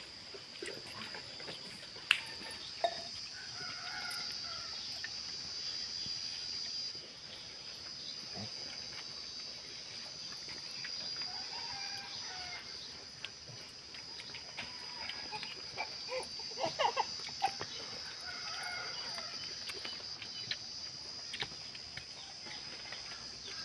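Steady high-pitched insect drone, with a rooster crowing three times, about every seven seconds, and a few light clicks and taps.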